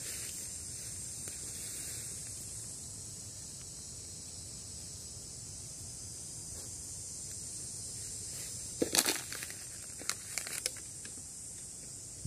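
Dry forest litter crackling and snapping in a short cluster about nine seconds in, then a few more sharp crackles a second later, over a steady high drone of insects.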